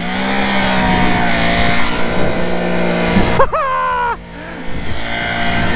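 Can-Am ATV engine running steadily under throttle while riding through deep snow. A short high-pitched sweep is heard about three and a half seconds in, and the engine eases off briefly just after four seconds before pulling again.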